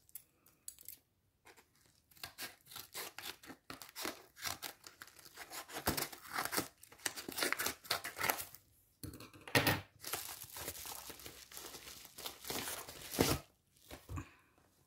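Scissors snipping through a yellow padded paper mailer, with the paper tearing and crinkling as the package is pulled open: a series of short, irregular rips and rustles with a few brief pauses.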